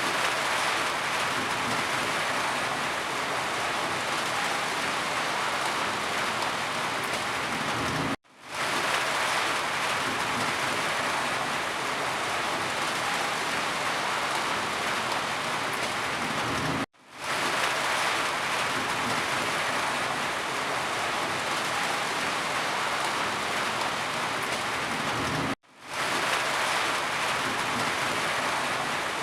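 Steady rain falling, a dense even hiss of drops. Three times, about every nine seconds, it cuts out to silence for a split second and quickly swells back in.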